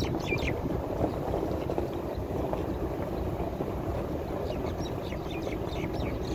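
Steady wind noise rushing on the microphone. A few short, high, falling chirps, like small birds calling, come near the start and again near the end.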